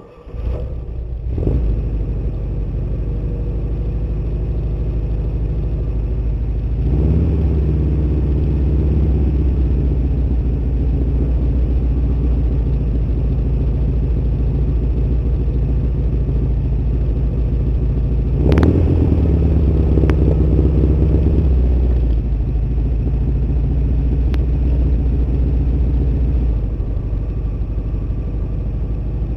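Motor trike engine starting up and then running steadily as the trike rides off. Twice there is a sharp click and a change in the engine note.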